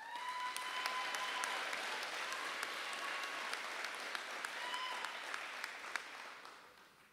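Audience applauding, fading out near the end, with a held high call over the clapping near the start and again about five seconds in.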